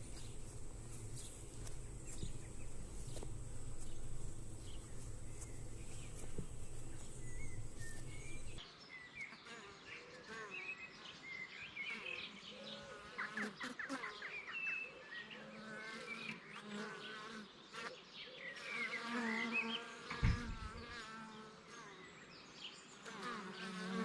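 Honeybees buzzing around an opened hive, their wavering hum rising and fading as individual bees pass close, with a single thump near the end.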